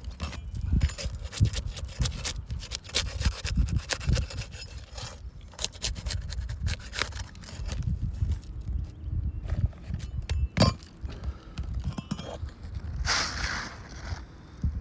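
An asphalt three-tab shingle being pried and scraped loose from a roof: irregular scrapes, clicks and knocks as its nails and seal are worked free, with a longer scraping rasp near the end.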